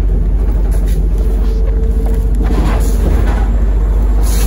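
Cabin of a MAZ-203 city bus: the engine and drivetrain give a steady low rumble, with a short hiss near the end.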